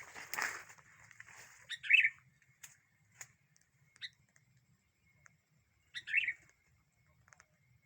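Sooty-headed bulbul (kutilang) calling: two short, bright call phrases about four seconds apart, with a few single chirps between them. A brief rustle comes just after the start.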